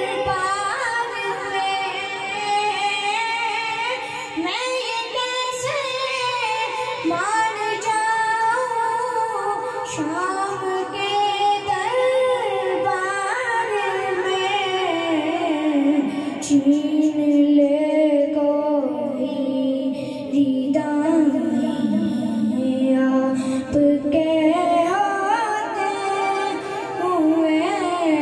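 A boy's high voice singing a naat, a devotional poem in praise of the Prophet, into a microphone, with long wavering held notes and ornamented runs.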